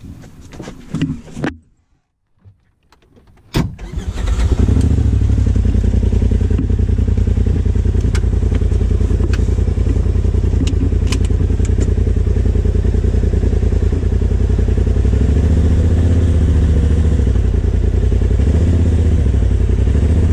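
Polaris RZR Turbo S's turbocharged twin-cylinder engine running steadily, with no revving, after a short quiet gap and a click about three and a half seconds in. There are a few light ticks over the engine.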